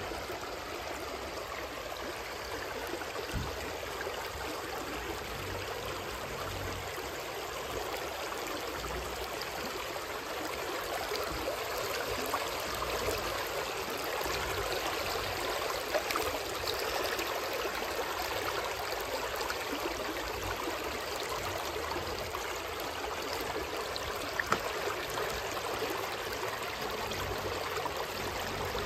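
Shallow river water rushing and burbling over a submerged rock weir and around stones, a steady flow that grows slightly louder about a third of the way in.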